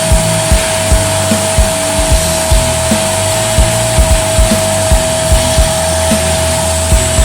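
Vacuum cleaner with a 1000-watt motor running steadily, a continuous whine over a rushing hiss. Background music with a steady drum beat plays under it.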